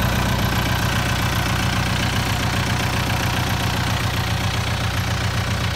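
Kubota M7040 tractor's four-cylinder diesel engine idling steadily.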